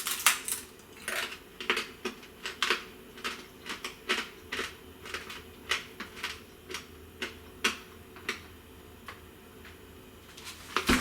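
Crispy microwave-cooked bacon crunching and snapping in sharp, irregular cracks, about two a second, thinning out near the end.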